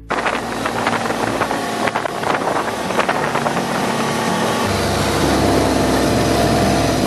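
Snowmobile engine running under way, with wind rush and frequent knocks from the ride over the trail. About two-thirds of the way through the knocking eases and the engine settles into a steady, even hum.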